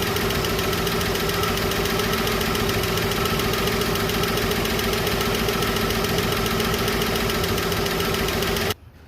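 Chevrolet 235 Blue Flame straight-six engine idling with its valve cover off, the rocker on a valve whose lash has just been adjusted and locked down to clear a slight misfire. It runs steadily and cuts off abruptly near the end.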